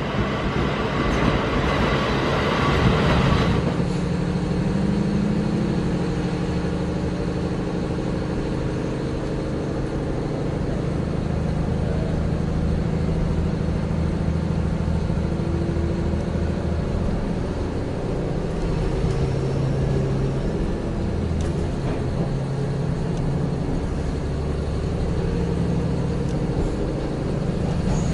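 Diesel engine of a KiHa 40 railcar heard from inside the passenger cabin: a steady low drone whose pitch shifts now and then as the train runs. It opens with about three seconds of the railcar running into the platform with a loud hiss, which stops suddenly.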